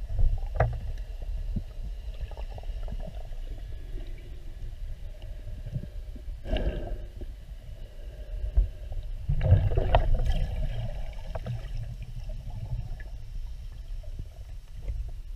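Muffled underwater rumble of water moving around a submerged camera, with two louder surges of water noise, one about six and a half seconds in and a longer one about nine and a half seconds in.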